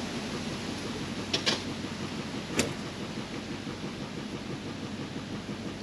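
A few sharp metallic clicks of hand tools and parts being handled at a bare front wheel hub: two close together, then one more. A steady outdoor hiss sits underneath.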